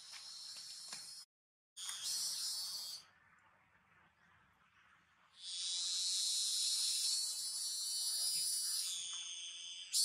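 High-pitched insect buzzing, with several steady tones held together. It breaks off for a moment a little after one second, stops again around three seconds and starts suddenly again about five and a half seconds in.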